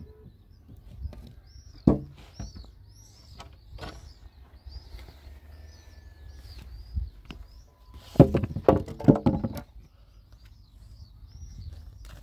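A bird calling over and over in short arched chirps, about twice a second, over a low steady outdoor rumble. One sharp knock comes about two seconds in, and a loud clatter of knocks follows about eight seconds in.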